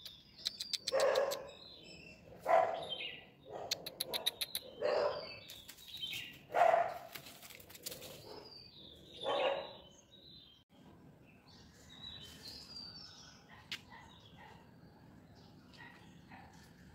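Cat meowing five times in about ten seconds, each call about half a second long, over rapid high bird chirping; after that only faint chirps remain.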